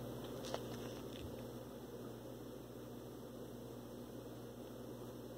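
Faint steady low hum, with a single soft tick about half a second in.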